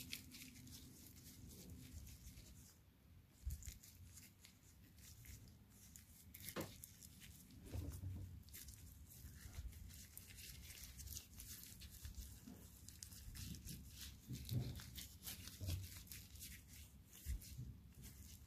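Faint rustling and crackling of rubber-gloved fingers working copper grease onto a subframe bolt's threads and turning the bolt, with a few soft low knocks.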